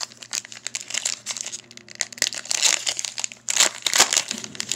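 Foil wrapper of a basketball trading-card pack crinkling and tearing as it is ripped open by hand: a run of crackling rustles, loudest a little past halfway and again near the end.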